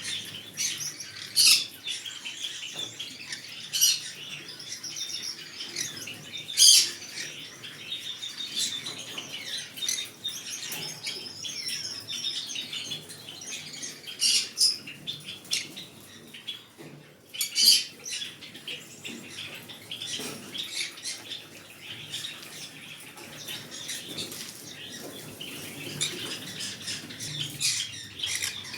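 Green-cheeked conure chirping and chattering in soft, quick, high-pitched calls, broken by about half a dozen short, loud, sharp calls.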